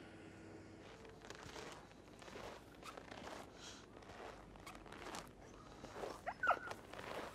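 Footsteps in snow, about two steps a second, starting about a second in. About six seconds in, a short high squeak is the loudest sound.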